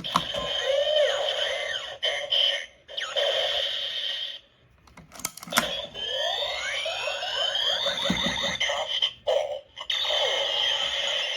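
Simplified Kamen Rider Kabuto toy belt buckle playing its electronic sound effects through its small speaker: warbling electronic tones, a break about four seconds in with a couple of sharp clicks, then a burst of sweeping rising and falling tones from about six seconds.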